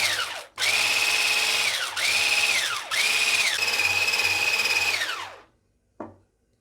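Electric hand beater whisking gram-flour (besan) batter in four runs: a brief one, two of about a second, then a longer one of about two and a half seconds, the motor's whine falling in pitch as it spins down after each.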